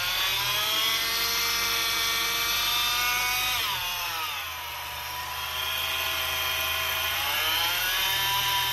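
Honda Accord engine being revved, with a whine like a supercharger from the worn bearing in the serpentine belt tensioner pulley. The whine's pitch follows engine speed: held high, falling about three and a half seconds in, then climbing again near the end.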